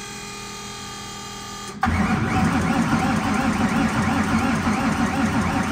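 An electric fuel pump whines steadily, then about two seconds in the starter motor cuts in and cranks the turbocharged engine over in an even pulsing rhythm without it firing, fed from a jump box that is nearly dead.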